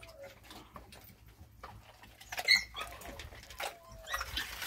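A dog eating dry kibble from a bowl, with scattered small crunches and clicks. A brief high chirp comes about halfway through.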